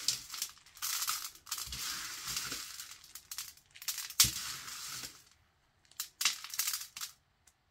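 Loose fake sprinkles being raked and pushed by hand across a metal baking tray: gritty scraping and rattling in several stretches, with one sharp click about four seconds in.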